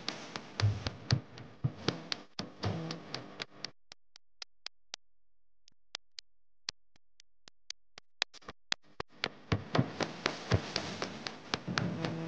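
Music with a steady run of sharp percussive clicks. About four seconds in, the music drops away, leaving only the clicks, and it comes back about nine seconds in.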